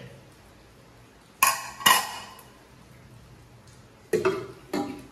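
Metal cooking pots and lids clanking as they are handled: two knocks with short ringing about a second and a half in, then a quick run of clanks near the end.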